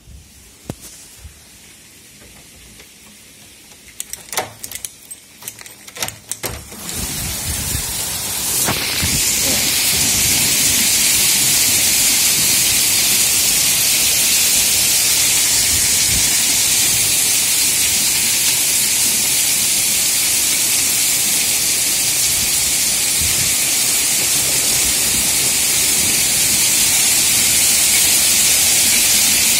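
A few knocks, then heavy rain swells within a few seconds into a loud, steady hiss.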